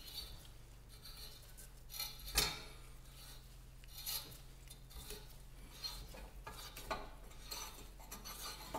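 Rusty, heat-loosened threads of a 1944 Coleman 220BX lantern's burner assembly grating and scraping in short strokes as it is unscrewed by hand from the fount, still tight. A sharp metal click comes about two and a half seconds in.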